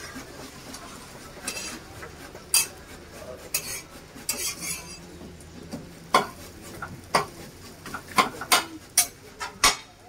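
Metal spatula clinking and scraping on a flat iron griddle while an uthapam is cooked. The strikes come now and then at first, then in a quicker run of sharp clinks in the second half.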